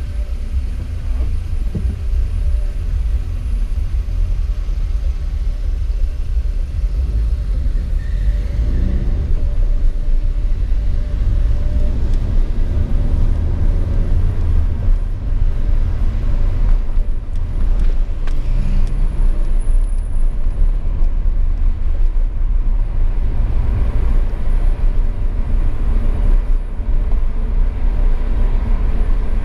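Car engine and road rumble heard from inside the cabin, a steady low rumble as the car pulls away from a stop and drives on.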